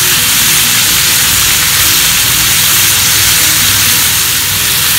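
Sliced pork belly sizzling in oil in a frying pan: a steady, loud frying hiss.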